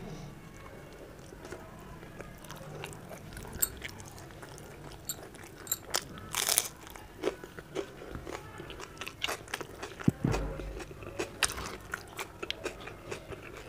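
Close-up chewing of food, with small wet mouth clicks throughout. About six and a half seconds in there is one loud crunch as a slice of raw onion is bitten.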